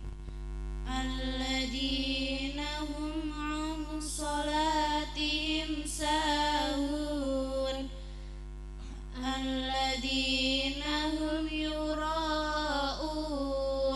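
Two young women reciting the Qur'an together through microphones and a sound system, in a slow melodic style with long held, ornamented notes and a short breath pause a little past halfway. A steady low electrical hum runs underneath.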